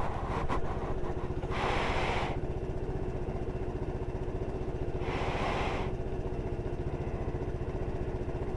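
Motorcycle engine running steadily, a low rumble with a steady tone over it, with two short bursts of rushing hiss, about two and five seconds in.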